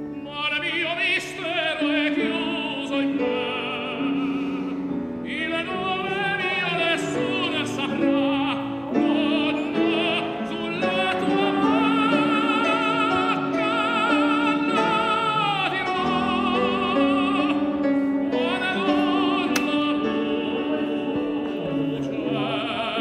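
Background music: an operatic voice singing long held notes with wide vibrato over instrumental accompaniment.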